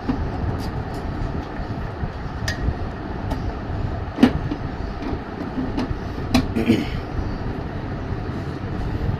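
Scattered light clicks and knocks of parts being handled and fitted while a microwave oven is reassembled, over a steady low background rumble.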